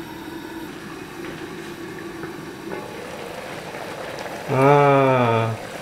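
Chicken pieces simmering in bacem sauce in a covered pot on a gas burner: a steady bubbling hiss. Near the end a voice speaks briefly.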